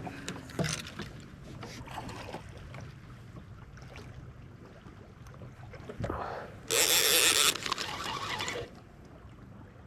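Boat motor running with a steady low hum. About seven seconds in there is a loud rush of noise lasting about a second, which then fades.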